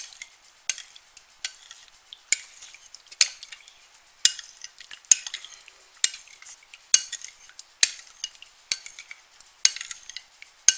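Metal spoon stirring melted butter and garlic in a bowl, clinking against the side of the bowl about once a second with a light scrape between strikes, mixing the garlic through the butter.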